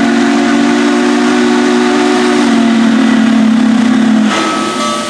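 Union Pacific 844's steam whistle sounding one long chord over the hiss of steam blowing from the open cylinder cocks, which clear excess water from the cylinders as the engine pulls out. The whistle stops about four seconds in, leaving the hiss.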